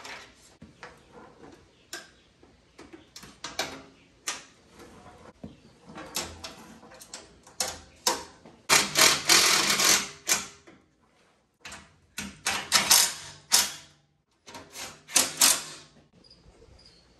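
Plastic underbody splash cover of a Honda Odyssey being pushed and tucked into place by hand: a run of clicks, knocks and plastic rattles, with longer stretches of plastic scraping about halfway through and again near the end.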